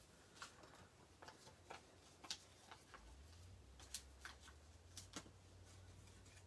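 Near silence with faint, scattered small clicks and ticks of paper craft pieces and a sheet of foam adhesive dots being handled on a desk. A faint low hum comes in about three seconds in.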